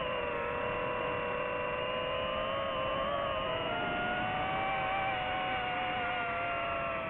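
DJI FPV drone's motors and propellers whining steadily, the pitch drifting slightly with the throttle.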